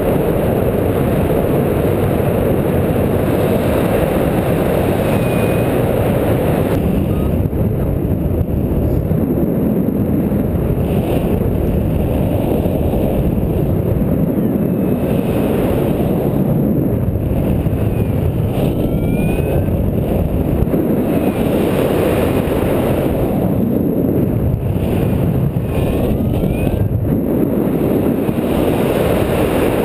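Airflow buffeting the microphone of a camera mounted on a paraglider harness in flight: a loud, steady rush of wind, strongest in the low range, with a few faint short whistles that slide up or down now and then.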